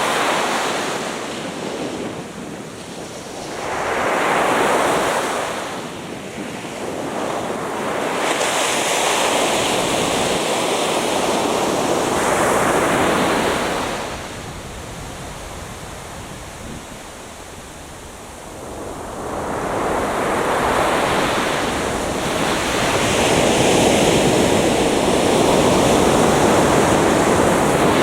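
Atlantic Ocean surf breaking on a beach. The waves surge in and wash back in slow swells several seconds long, with a long quieter lull midway.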